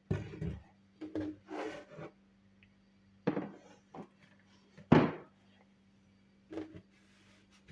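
Kitchen handling sounds: a series of irregular knocks and clatters, about seven, as utensils and containers are moved and set down, the loudest about five seconds in, over a faint steady low hum.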